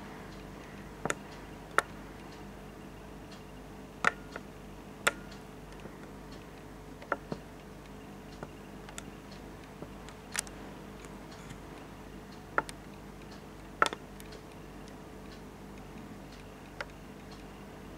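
Sharp, irregularly spaced clicks of a marker tapping against a whiteboard while writing, about ten over the stretch, over a faint steady hum.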